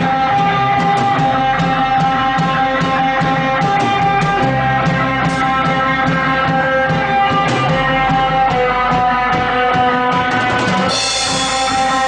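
Rock band playing live: electric guitars holding sustained notes over a steady drum-kit beat and bass, with a cymbal crash about eleven seconds in.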